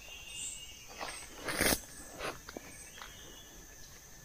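Dry branches and leaf litter rustling and snapping as someone pushes through brush, with a louder crackle about one and a half seconds in and a few small clicks after it. Insects buzz faintly and steadily underneath.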